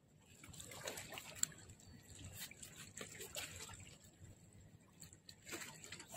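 Faint water trickling and lapping against shore rocks, with scattered small clicks and ticks about a second apart.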